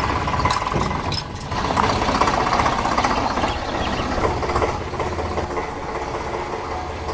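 Small motor and gears of a radio-controlled toy vehicle running with a steady buzzing whine, which dips briefly about a second in and then carries on.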